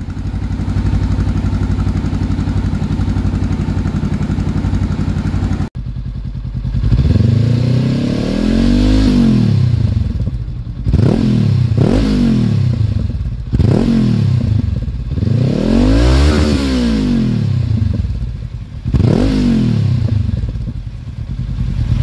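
Honda CB500X's parallel-twin engine through an Arrow slip-on exhaust, first running at a steady speed, then, after a brief break about six seconds in, revved in about six throttle blips, each rising and falling in pitch.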